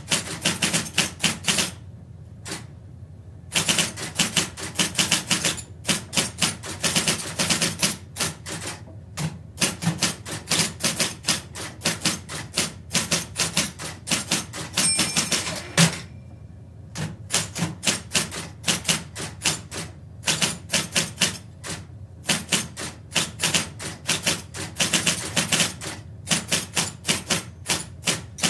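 Electric typewriter being typed on at a medium pace, heard from about four metres away: runs of quick key strikes broken by short pauses. About halfway through, a short high tone ends in a heavier knock.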